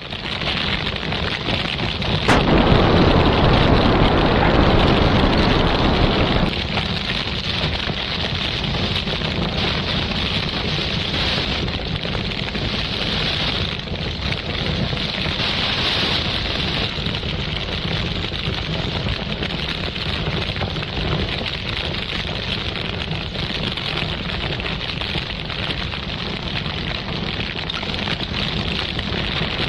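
Spaceship crash: a sharp crack about two seconds in, then a loud explosion-like rush for about four seconds, settling into a steady noisy rush.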